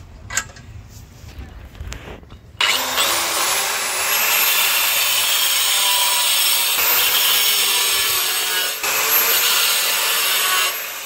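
Angle grinder with a zero-chipping blade cutting a straight anti-skid groove into a black granite stair tread. A few light clicks come first; about two and a half seconds in the grinder cuts in suddenly and runs loud and steady with a high whine, dips briefly once, and drops away near the end.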